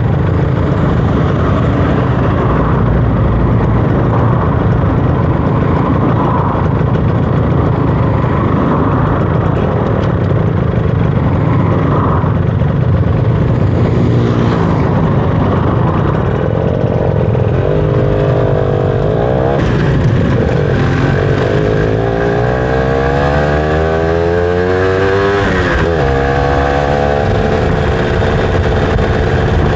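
Motorcycle under way with a steady rushing noise; from about halfway the engine's pitch climbs and drops several times as it accelerates and shifts gears.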